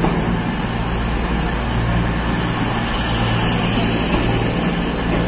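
Avanti West Coast Class 221 Super Voyager diesel multiple unit's underfloor diesel engines running with a steady low drone.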